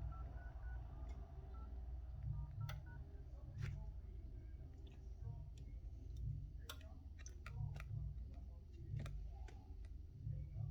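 Scattered sharp clicks and taps from handling phone-repair tools and the opened iPhone, over a steady low hum. A few short electronic beeps come in the first second or so.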